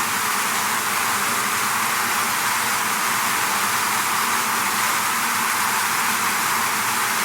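Swarm of honeybees buzzing as a dense, steady hiss much like a rain shower, with no change in level.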